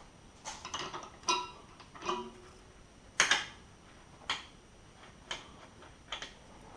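Metal tools and suspension parts clinking and clicking as they are handled, a string of separate sharp knocks, a couple ringing briefly, coming about once a second toward the end.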